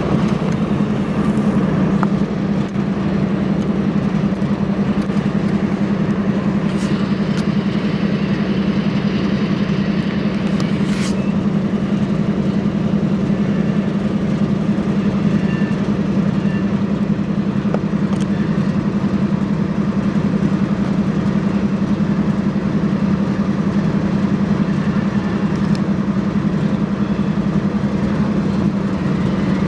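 A vehicle engine running steadily, with a constant low hum under a noisy background.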